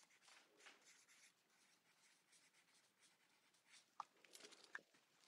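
Faint scratching of a pen writing a signature on paper, in short strokes, with a few soft ticks near the end.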